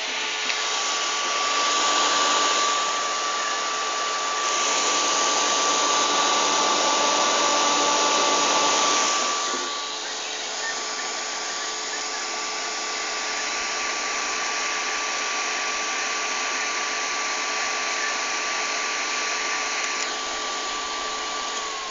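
Matsuviva electric cooling fan running at speed: a steady rush of air with a steady whine from the motor. The sound swells louder twice in the first half. Just before the end the whine starts to drop in pitch as the motor slows.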